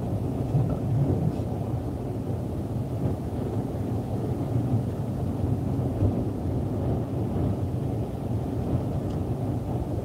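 Steady low rumble of storm wind and lake surf, with small surges, heard from inside a car.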